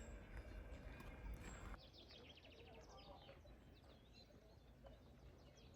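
Songbirds chirping and trilling in rapid short phrases over faint outdoor ambience. For the first couple of seconds a louder low rumbling noise covers it, which drops away suddenly.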